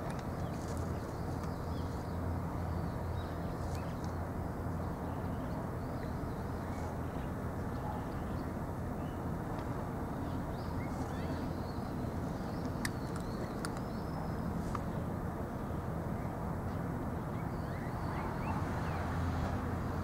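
Steady low outdoor background rumble, with a few faint high chirps and ticks scattered through it.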